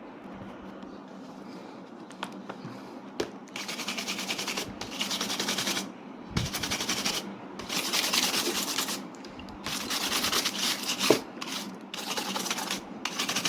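The laptop's dusty cooling fan being scrubbed clean, in repeated scratchy bursts of a second or so that start a few seconds in, with a few light clicks of handling before them.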